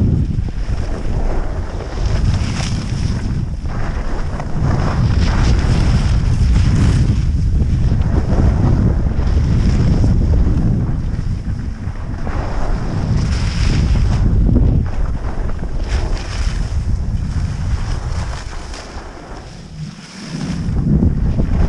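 Wind rushing over the microphone of a camera skiing downhill, a loud low buffeting, with the hiss and scrape of skis on snow swelling every couple of seconds as the skier turns. It drops away briefly near the end, then picks up again.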